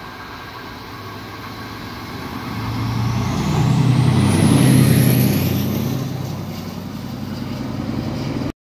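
ÖBB class 2143 diesel-hydraulic locomotive passing close under power: the deep engine note builds to a peak about four to five seconds in, with a high whine rising in pitch, then fades as it goes by. The sound cuts off suddenly near the end.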